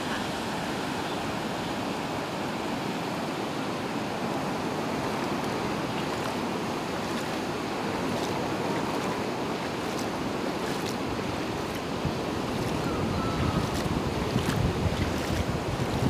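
Sea surf breaking and washing over a shallow sandy beach: a steady rush of water. In the last few seconds, wind buffets the microphone with a low rumble.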